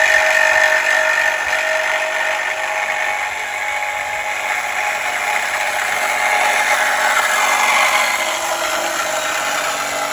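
Hart cordless reciprocating saw, the brushed base model, running steadily under load as its blade cuts through a rusted steel exhaust pipe. About two-thirds of the way through, one tone in the whine slides down in pitch.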